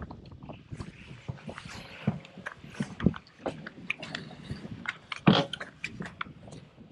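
Irregular clicks, taps and rustles of a spinning rod and reel being handled close to a chest-mounted microphone, with one louder knock about five seconds in.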